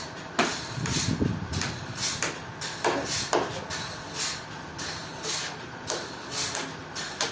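Sawmill work noise: a run of short, irregular knocks and clatters, roughly two a second, over a steady low rumble.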